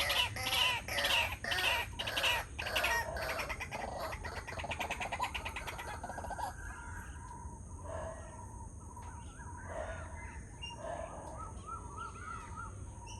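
A pair of white-breasted waterhens calling in a loud, harsh, rapidly repeated chatter that dies away about six seconds in, followed by softer scattered calls.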